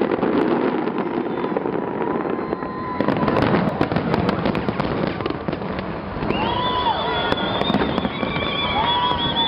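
A fireworks display: continuous booming and dense crackling of aerial shells, the crackle thickening about three seconds in. From about six seconds in, high whistling tones sound over the bursts.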